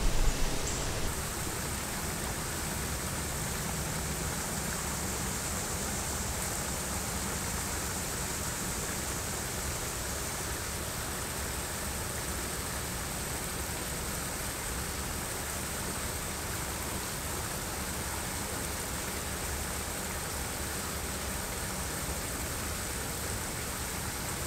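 Small waterfall splashing over rocks into a pool: a steady rush of water.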